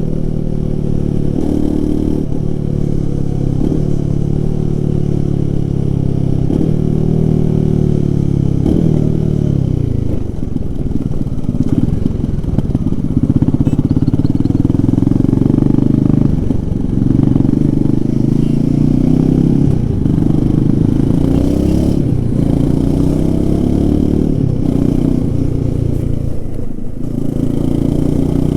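Royal Enfield Himalayan 450's single-cylinder engine and exhaust under hard acceleration, the revs climbing and then dropping sharply again and again as the bike shifts up through the gears.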